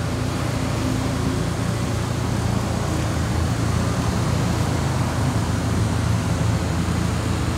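Steady vehicle and street noise with a constant low rumble and an even hiss; nothing stands out.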